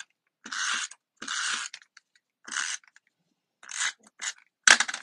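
Paper trimmer's sliding blade drawn along the rail, scraping as it cuts through designer paper in a run of short strokes. A louder stroke with a sharp knock comes near the end.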